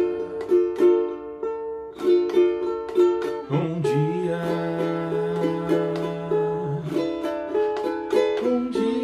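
Acoustic ukulele strummed in a bolero rhythm: thumb downstrokes, index-finger upstrokes and rasgueado flourishes, with a chord struck about every half second and ringing on.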